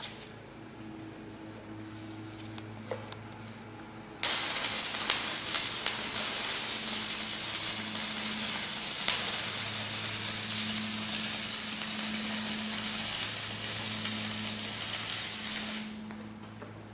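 Battery-powered stick-welding arc on a 3/32 stainless steel rod: a few light taps as the rod is struck, then the arc catches about four seconds in and runs with a steady crackling sizzle for about twelve seconds before cutting off. It is a low-current arc, reading about 13 to 15 amps.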